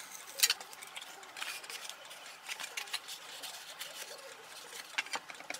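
Scattered clicks, taps and light rustles of styrofoam-plate pieces and small tools being handled on a cutting mat, with a sharper click about half a second in and a couple more near the end.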